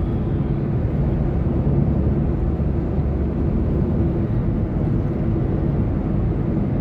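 Steady engine and road noise of a Suzuki Alto 660 cc's small three-cylinder engine cruising at highway speed, heard from inside the car, with a low, even rumble and a faint steady hum.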